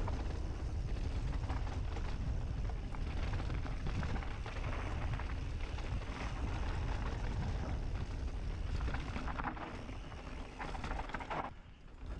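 Mountain bike riding a dirt trail: a steady rumble of wind on the microphone with tyre noise and rattling knocks over bumps, dropping off briefly near the end.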